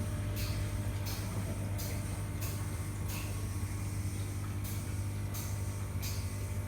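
Thermal-water insufflation apparatus: short puffs of hissing gas repeating about every 0.7 s, with a pause of a second or so in the middle, over a steady low machine hum.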